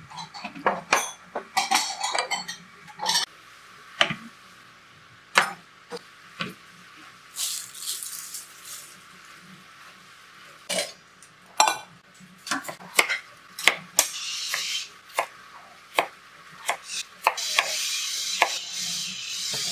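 Kitchen clatter of a knife knocking through potatoes onto a plastic cutting board, with dishes clinking. A pencil sharpener grinds in the background in short spells, the longest and steadiest near the end.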